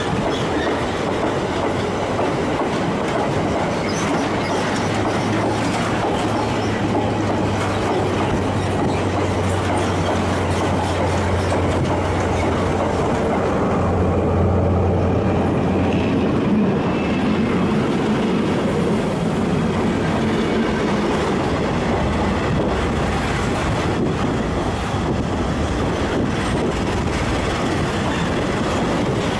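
A freight train passing close by: a steady, loud rumble of wagon wheels clattering over the rails. A low, steady hum rises out of it for about ten seconds in the first half and is strongest about halfway through.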